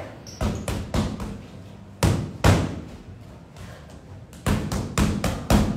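Boxing gloves punching a free-standing heavy bag in quick runs of uppercuts and hooks: three fast blows, then two about two seconds in, then a burst of about five near the end.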